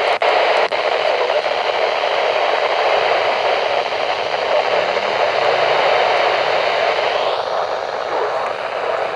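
Radio static: a steady hiss from a receiver without a clear signal, cutting out briefly twice in the first second.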